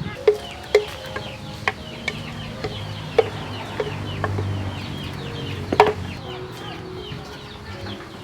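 Chickens clucking with many high, falling peeps, as of chicks, running throughout, and several sharp knocks, the loudest near 6 seconds in.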